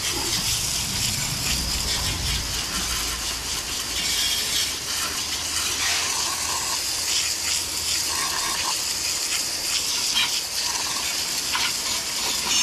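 Garden hose spray nozzle jetting water onto a motorcycle's engine and chrome: a steady hiss and spatter of spray.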